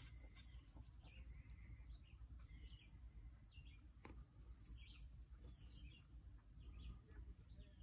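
Faint bird chirps: short high calls scattered through, about one every second or so, over a low outdoor rumble.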